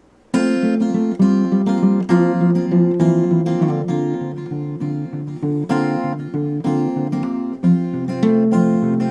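Solo graphite acoustic guitar fingerpicked in a polyrhythmic pattern, a slow ballad with bass notes under ringing treble notes. It starts about a third of a second in.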